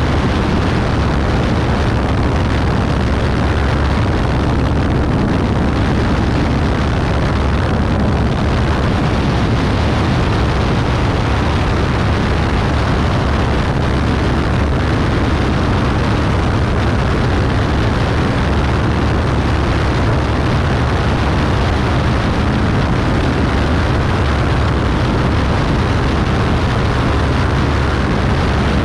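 Beechcraft Bonanza B35's air-cooled flat-six engine and propeller running steadily in flight: a constant low drone under a heavy rush of noise.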